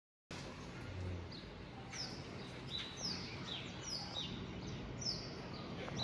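Several birds chirping: short, high calls that fall in pitch, repeated every half second or so over a steady background hiss.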